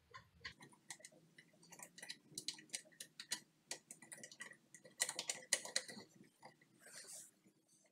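Faint, irregular clicks and ticks of hard plastic and metal as the discharge-tube flange and its screws are handled and started by hand on a garbage disposal, with a denser run of clicks about five seconds in and a short rustle near the end.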